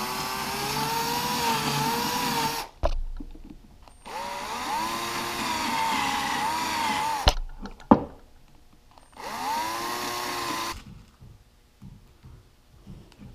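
Bosch cordless drill with a 5/16-inch twist bit boring pilot holes through plywood at slow speed: three runs of a few seconds each, the motor pitch wavering with the load, the first two ending in sharp clicks.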